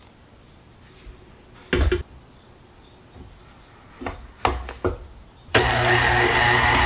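Electric hand mixer given a few short bursts, then switched on about five and a half seconds in and running steadily.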